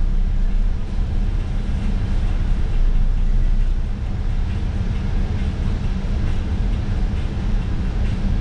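City bus driving along: a steady low rumble of engine and road noise.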